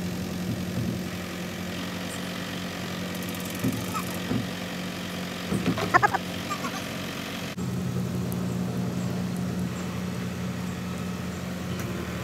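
Truck-mounted crane's diesel engine idling steadily while the dinghy hull hangs in the lifting straps. A few short, loud, high-pitched squeaks break in about six seconds in.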